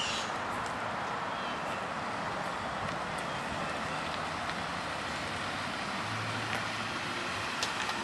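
Steady outdoor street background noise, an even hiss with a few faint short high chirps.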